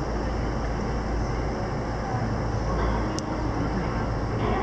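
Steady low rumbling background noise, with a single sharp click about three seconds in.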